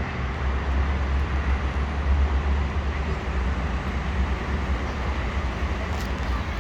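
Steady outdoor street noise: a continuous low rumble under an even hiss, with no distinct events.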